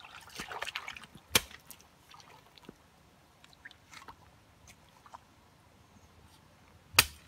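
Shallow stream water sloshing around a bamboo fish trap for about a second, followed by two sharp knocks, one shortly after and the loudest near the end, as a shovel cuts and packs mud against the trap.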